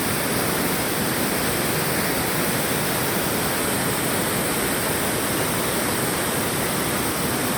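Waterfall: the steady rush of falling water, even and unchanging.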